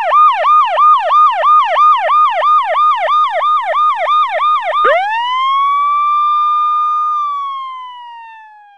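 Electronic police-style siren alarm: a fast up-and-down yelp, about three sweeps a second, switches about five seconds in to one slow wail that rises, holds, then slowly falls and fades away.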